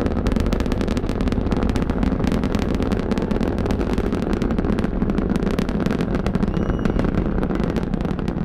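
Space Shuttle Discovery's launch rumble, its solid rocket boosters and main engines burning during ascent: a steady, deep rumble with dense, rapid crackling.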